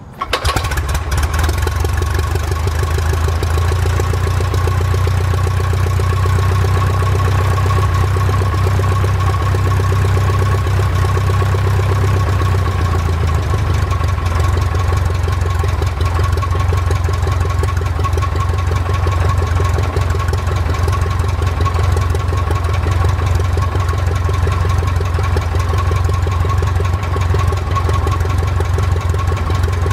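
Aeronca 11BC Chief's four-cylinder air-cooled engine catching on a hand-propped swing of the propeller, then running steadily at idle. This is a cold start after several months without running.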